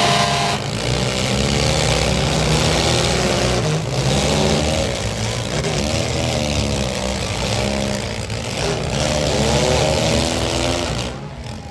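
Engines of several compact demolition-derby cars revving hard, the pitch climbing and falling back again and again as they run under load.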